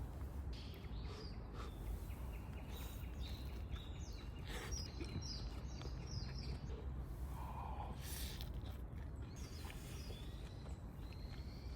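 Small birds chirping and calling in the woods, with short high notes scattered throughout, over a steady low background rumble.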